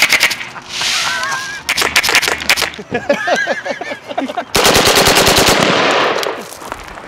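Wolverine Airsoft HPA Gen-12 replica shotgun with a HAVOC engine firing rapid full-auto bursts of compressed-air shots. The longest and loudest burst comes about halfway through. People whoop and laugh between the bursts.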